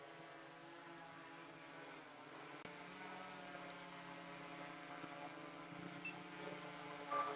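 DJI Air 3S drone's propellers humming faintly in flight. It is a steady buzz with several pitches at once, which dips briefly about two seconds in.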